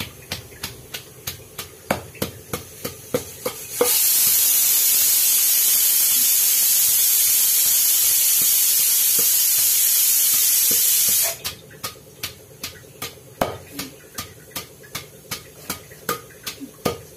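Wooden pestle pounding raw cucumber chutney in a stone mortar, about three knocks a second. About four seconds in, a loud steady hiss starts, drowns the pounding for about seven seconds, then cuts off suddenly.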